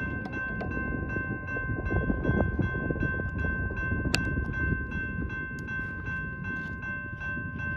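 Electronic railroad crossing bell (General Signals Type 2) ringing rapidly, about three strikes a second, while the crossing gates come down. Underneath is a steady low rumble, and there is one sharp click about four seconds in.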